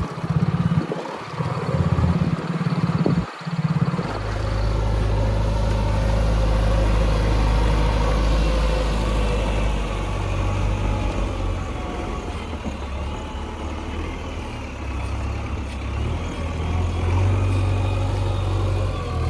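JCB backhoe loader's diesel engine running steadily, with two brief dropouts about a second and three seconds in, then easing off slightly and picking up again near the end.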